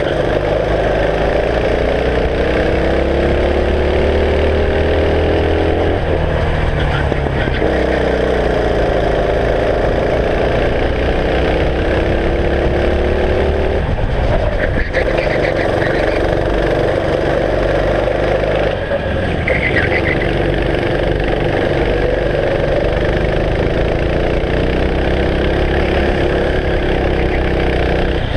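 Go-kart engine heard from the driver's seat, rising in pitch as it accelerates and dropping each time the throttle is lifted for a corner, about three times.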